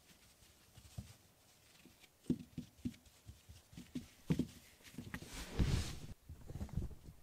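Soft thumps and taps as a kitten paws and pounces on a felt mouse toy and ball on a foam mat. About five and a half seconds in there is a longer, louder rubbing rumble as its fur brushes against the camera microphone.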